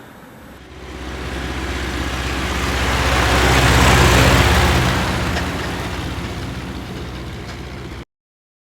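A motor vehicle's engine passing by: the hum and road noise swell to a peak about four seconds in, fade away, then cut off abruptly near the end.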